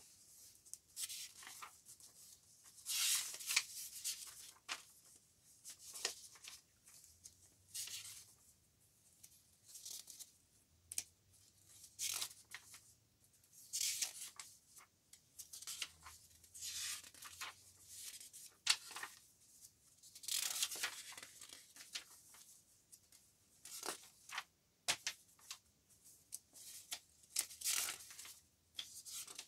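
Pages of a handmade paper notebook turned one after another by hand: a short rustle or swish of paper every second or two, some louder than others.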